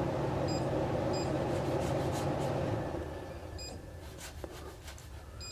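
Anet N4 resin printer's Z-axis stepper motor humming steadily as it lowers the build plate toward the levelling paper, stopping about three seconds in. Several short faint beeps from the touchscreen as buttons are pressed.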